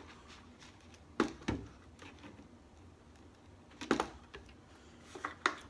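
A few short knocks and clunks from a plastic gallon milk jug and a plastic cereal bowl being handled while milk is poured onto cereal. The clunks come about a second in, again near four seconds, and near the end.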